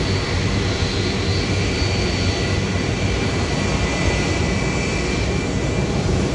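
Airbus A330-200F freighter's jet engines running steadily as it taxis, a continuous rumble with high, thin whining tones over it.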